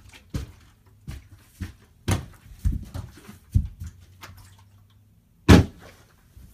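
A filled plastic soda bottle being flipped: a run of light knocks and footsteps, then one loud thud about five and a half seconds in as the bottle comes down, over a faint steady low hum.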